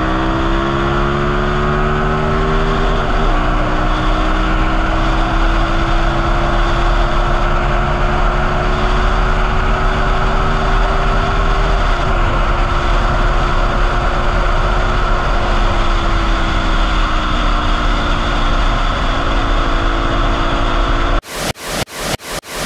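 Benelli 752S parallel-twin engine accelerating hard, its pitch climbing with two quick upshifts about three and twelve seconds in, over heavy wind rush on the microphone at highway speed; later the pitch eases off. Near the end it gives way to a quick run of rhythmic whooshing pulses from an intro sound effect.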